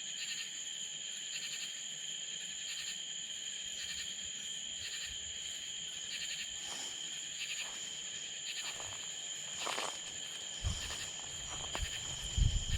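Night insect chorus of crickets: a steady high trill, with a pulsed chirp repeating a little faster than once a second. A few low thumps come near the end.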